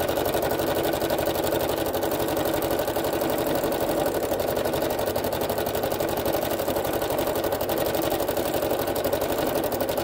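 Domestic sewing machine running steadily at speed for free-motion stitching, the needle going up and down in a fast, even rhythm.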